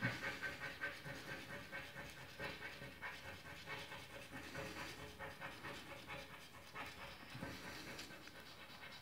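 Scratch-off lottery ticket's coating being rubbed off by hand in quick back-and-forth strokes, about four or five a second, loudest in the first second.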